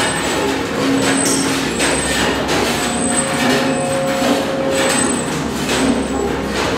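Milking machine running: a steady vacuum-pump hum with held tones, and a hissing pulse about once a second from its pulsation.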